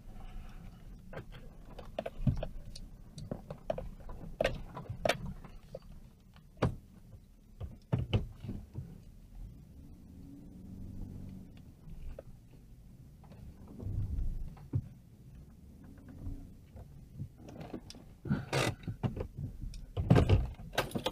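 Car interior while driving slowly on a rough dirt road: a low engine and road hum with frequent sharp knocks and rattles as the car jolts over bumps, busiest near the end.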